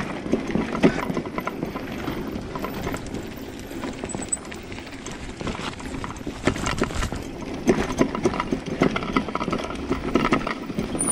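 Bicycle rattling over a rough dirt and gravel trail on a descent: tyres crunching over stones and roots, chain and frame clattering in quick, irregular knocks.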